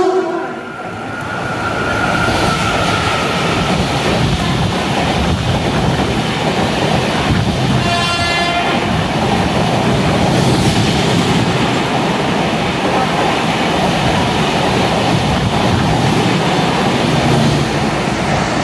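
Passenger express hauled by an Indian Railways electric locomotive running through a station at speed in heavy rain: steady rumble and wheel noise of the coaches rushing past. A short horn blast comes about eight seconds in.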